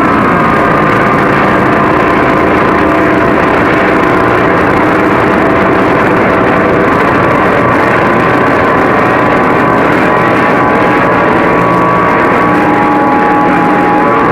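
CB radio receiver audio with a loud, steady wash of static and several steady whistling tones, the heterodyne of many stations keying their carriers on the channel at once.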